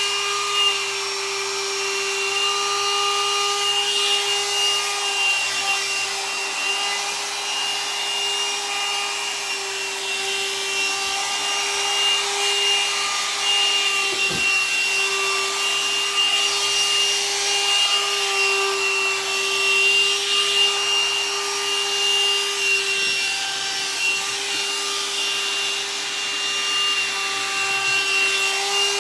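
Hot air brush (blow-dryer brush) running steadily as it is worked through hair: a constant motor whine over the rush of blown air.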